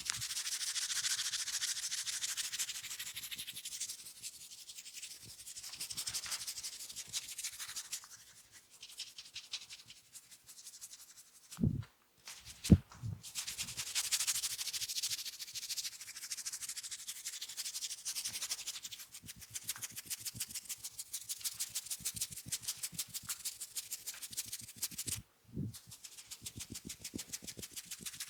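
Hands rubbing and scratching a person's scalp and hair during a head massage, in fast rhythmic strokes with a rasping hiss. The strokes ease off partway through, and a couple of dull thumps and one sharp knock, the loudest sound, come in the middle and near the end.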